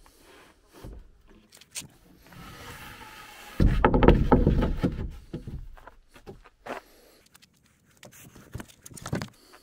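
Scattered knocks, clicks and scrapes from handling a wooden OSB slide-out drawer in a pickup's bed, with a loud low rumble starting about three and a half seconds in and fading over a second or so.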